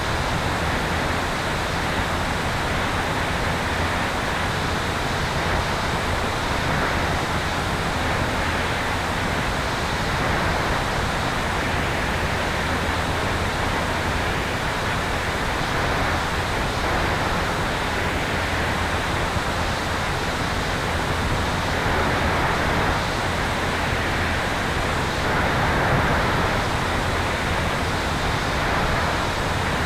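Steady rush of airflow buffeting the microphone of a camera mounted on the tail of an electric Sonex Xenos airplane in cruise flight, with a low steady hum underneath from the electric motor and propeller.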